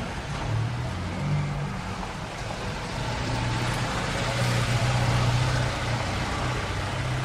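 Busy street traffic: a steady wash of car and truck engines and tyre noise with a low engine hum, swelling louder a little past the middle as vehicles pass close.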